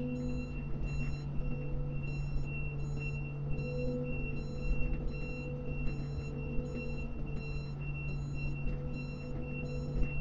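Grab crane travelling along its jetty rail: a steady low drive hum under a repeating electronic warning beep, typical of a crane's travel alarm.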